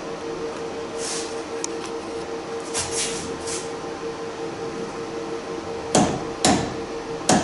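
Click-type torque wrench tightening the inner nut of a Bosch common-rail diesel injector to a set torque, giving three sharp clicks near the end as the set torque is reached, over a steady hum.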